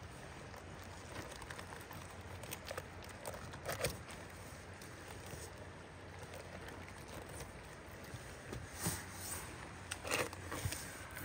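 Fillet knife working along the skin of a coho salmon fillet on a rubber mat: soft handling noises and a few scattered clicks and knocks over a low steady rumble.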